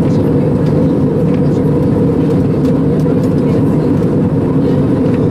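Steady cabin noise inside an Airbus A320 in cruise: a constant low roar of the engines and the airflow over the fuselage, with a faint steady tone above it.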